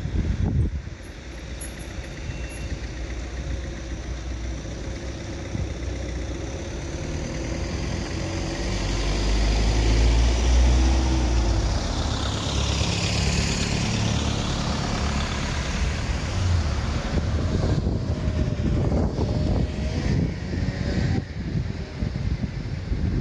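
A motor vehicle drives past close by on a street. Its engine rumble grows to a peak about ten seconds in, a rush of tyre and air noise follows, and then it fades back into steady traffic noise. Wind buffets the microphone near the start and again in the last few seconds.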